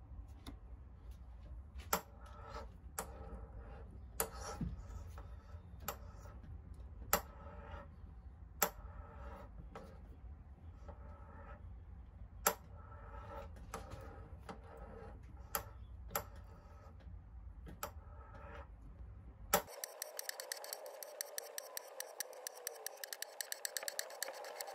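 A hand tap in a T-handle tap wrench cutting threads into a tie rod held in a vise. Sharp, irregular clicks and ticks come as the tap is turned, over a steady low hum. Near the end the hum drops away and the clicks come quickly, several a second.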